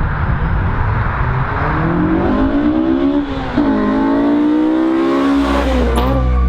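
Honda Integra Type R four-cylinder engine accelerating hard: its pitch climbs, drops at a gear change about three seconds in, then climbs again. Music with a deep bass comes in near the end.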